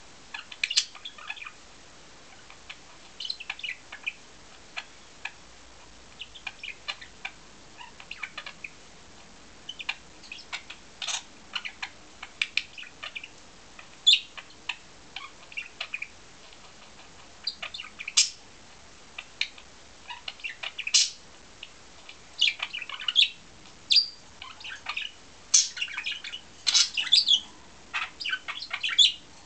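Budgerigars chirping and chattering in quick runs of short, high calls, coming thicker and louder in the second half: the excited chatter of a male budgie.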